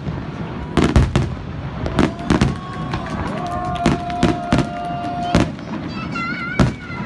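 Aerial firework shells bursting in a rapid series of sharp bangs, with a steady high tone held for about two seconds midway.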